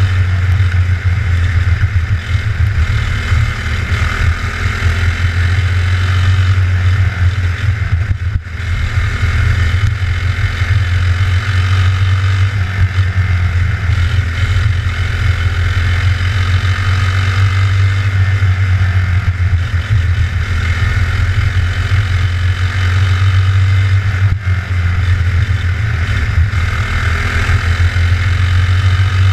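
Onboard sound of a racing kart's engine running hard on a dirt track, its pitch swelling and easing a little as it goes and dipping briefly twice.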